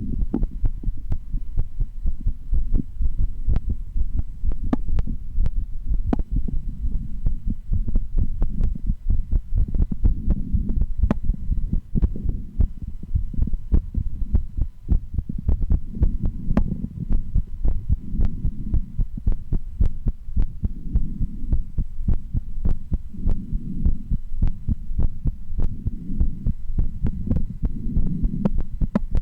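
A woman's heartbeat heard through a stethoscope, beating in a steady rhythm of low thumps.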